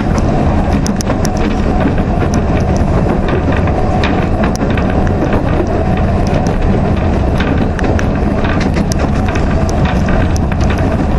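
Interior rumble and rattle of a narrow-gauge steam railway carriage in motion, wheels running on the rails, with frequent sharp clicks and knocks from the wheels and bodywork.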